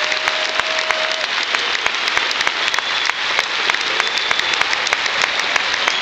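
Large arena crowd applauding steadily, a dense mass of hand claps with sharper individual claps standing out. A few brief whistle-like tones sound over it now and then.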